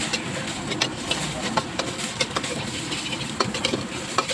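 Metal ladle scraping and clinking against a steel wok in quick, irregular strokes while the food is stir-fried, over a steady rush of the gas burner and sizzling.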